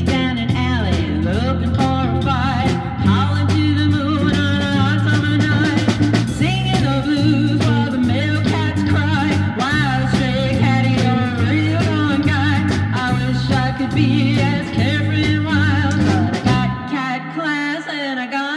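A band playing a swinging rockabilly tune on electric guitar, bass and drums, with a wavering lead line on top. Near the end the bass and drums drop out, leaving the upper part on its own.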